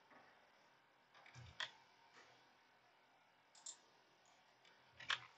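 Near silence broken by three faint, short clicks about two seconds apart, as from a computer's mouse or keys while the slide is changed.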